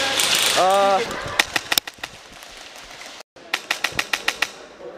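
A voice calls out over loud noise, then an airsoft electric rifle fires a few sharp shots. After a brief break it fires a quick string of about ten shots, roughly nine a second.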